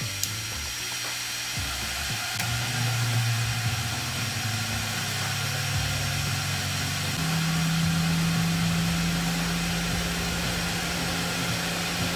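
A switch clicks, then the laser CNC's exhaust fans and air-assist pump run with a steady rush of air and a low motor hum. The hum shifts higher about seven seconds in.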